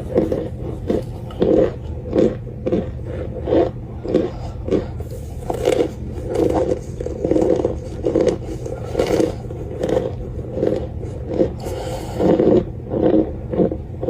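Close-miked crunching of baked cornstarch chunks, about one and a half crunches a second at an even pace, over a steady low hum.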